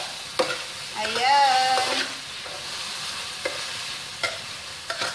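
Chicken pieces and mushrooms sizzling in a hot wok while a spatula stirs them. The spatula knocks and scrapes against the pan several times.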